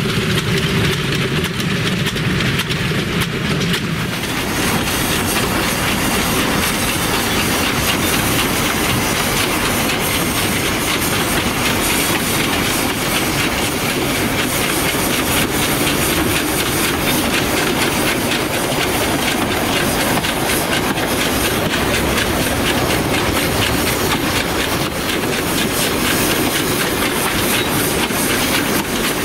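Two narrow-gauge class 298 steam tank locomotives working a train at close range: a steady hiss of steam and exhaust over the clatter of wheels on the rails.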